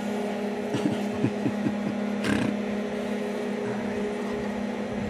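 Leather welding gloves and a welding helmet being handled: a few soft knocks, then a brief rustle about two seconds in, over a steady low machine hum.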